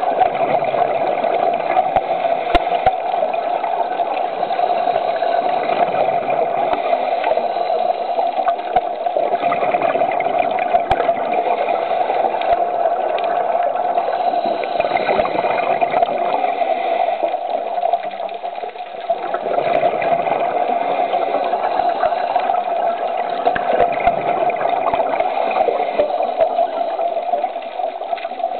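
Muffled, steady rushing water noise picked up underwater by a diver's camera in its housing, dipping briefly twice.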